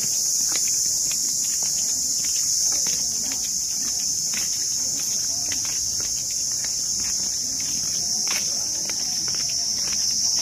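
Steady, high-pitched chorus of insects, loud and unbroken, with scattered light clicks of footsteps and faint voices beneath it.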